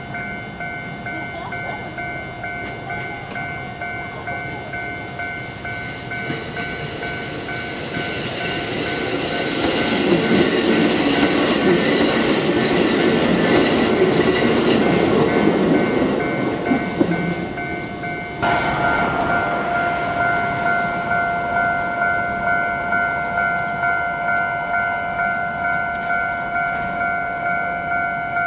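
Kotoden 1080-series electric train (ex-Keikyu 1000 series) pulling out and running past, its motors and wheels loudest from about ten to sixteen seconds in. Under it a bell rings steadily, about one and a half strikes a second, and its tone shifts abruptly about eighteen seconds in.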